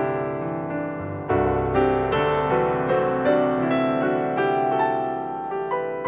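Piano music: a melody of struck notes over held chords, growing fuller and louder about a second in.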